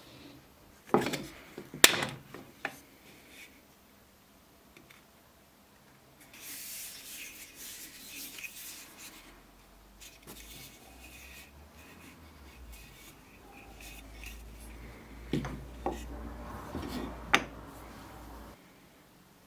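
An old wooden hand plane and its bar clamps handled on a wooden workbench: sharp wooden knocks about a second and two seconds in, a few seconds of rubbing, and more knocks near the end.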